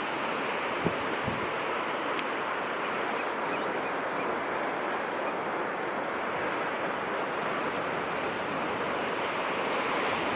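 Ocean surf breaking and washing on the shore: a steady rushing hiss that swells a little near the end.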